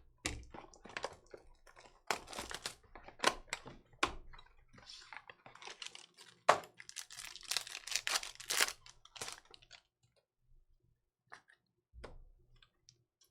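Trading cards being handled and flipped through: a quick run of clicks and short slides of card on card, thinning out to a few scattered clicks about ten seconds in.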